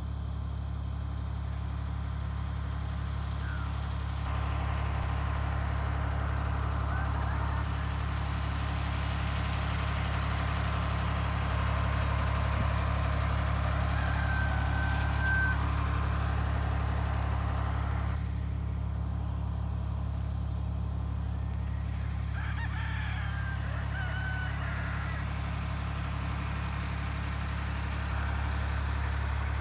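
Flock of chickens clucking and calling now and then, with one drawn-out call about fifteen seconds in and a few more calls later, over a steady low drone.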